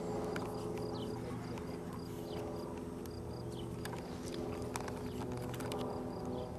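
A light aircraft's piston engine running with a steady drone, unchanging in pitch, with a few small clicks of camera handling on top.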